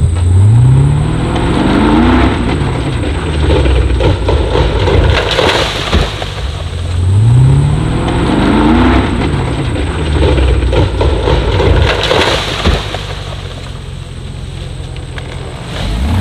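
Small car engine revving hard twice, its pitch climbing each time, as a Mini Cooper is driven over rough dirt ground, with loud knocks and crashes of the car bouncing and hitting brush. Near the end the engine revs again as it crashes into the bushes.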